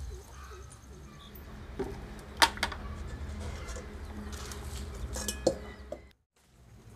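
Steel bowl clinking sharply a few times as it is handled: a pair of clinks about two and a half seconds in and a few more near the end.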